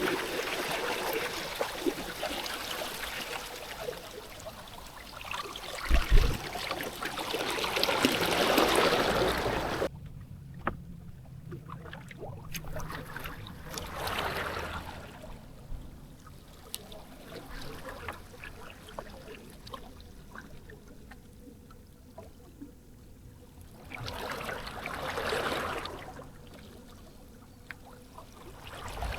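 Small waves washing in and receding along the shore, the rushing water swelling and fading every several seconds. A short low thump sounds about six seconds in.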